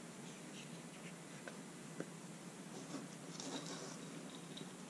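Faint clicks and rustling of hands handling a motorcycle front brake master cylinder on the handlebar, with a couple of light knocks about a second and a half and two seconds in and a short cluster of ticks a little after three seconds. A low steady hum runs underneath.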